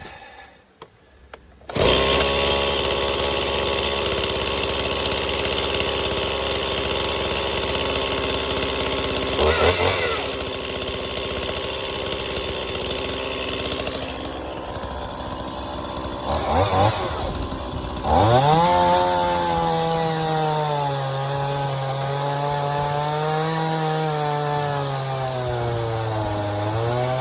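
Stihl MS170 two-stroke chainsaw running hard with a cheap aftermarket chain, milling a log. It starts about two seconds in at a steady pitch. Late on, its pitch shifts and wavers up and down as the chain works through the wood.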